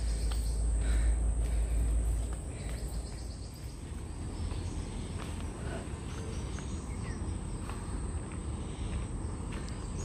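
Forest birds calling and insects chirping, scattered short calls over a steady background. A low rumble in the first couple of seconds fades out.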